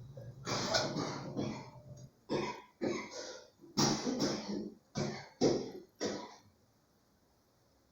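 A person coughing and clearing their throat, a run of about eight short coughs over some six seconds. A low steady hum underneath cuts off about two seconds in.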